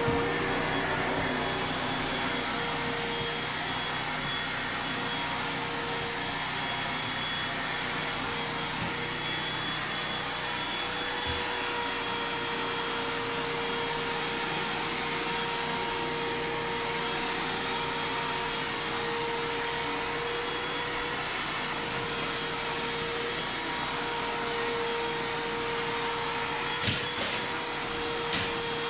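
Vacuum cleaner running steadily, a smooth rushing noise with a few fixed whining tones.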